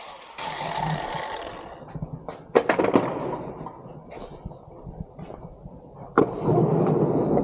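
Sharp metal knocks about two and a half seconds in and again near six seconds, the second followed by a rough rattling and scraping, as hardware is worked on a storage cage's steel frame.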